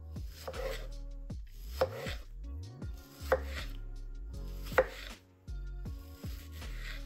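A knife slicing a tomato into rounds on a wooden cutting board: about five cutting strokes, three of them ending in a sharp knock of the blade on the board.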